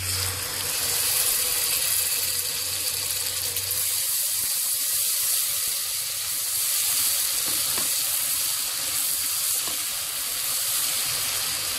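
Ginger-garlic paste frying in hot oil and butter with whole spices in a kadhai: a steady sizzle as it is stirred.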